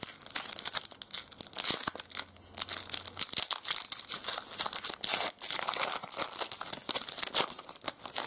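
Foil trading-card pack wrapper being torn open and crinkled by hand: a dense, irregular crackling and tearing, loudest a little past the middle.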